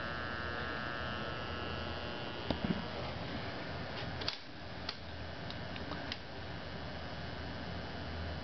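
Steady, faint mains-frequency hum of the upper transformer in a home-built voltage regulator, with a few light clicks around the middle.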